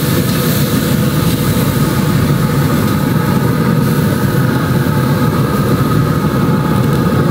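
Ribeye steak sizzling loudly as it sears under a steak press on GrillGrate panels over the direct-sear fire of a pellet grill at about 600 degrees, over a steady low rumble.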